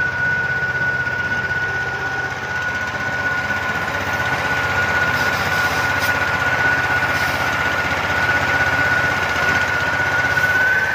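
Motoyama 16 HP concrete cutter's petrol engine running steadily, with a strong steady high whine that rises slightly near the end.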